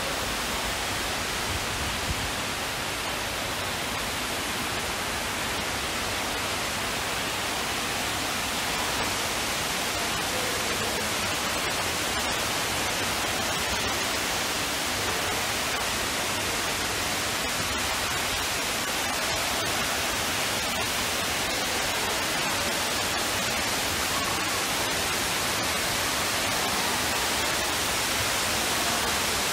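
Steady rushing of falling water: an even, unbroken hiss that holds the same level throughout.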